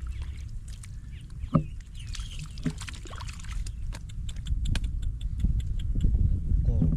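Water splashing and sloshing in a flooded rice field, with scattered sharp clicks and splashes over a low rumble of wind on the microphone.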